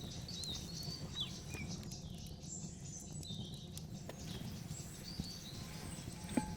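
Small birds chirping in short high calls over a steady low rushing background, with a few faint clicks and one sharper tap near the end.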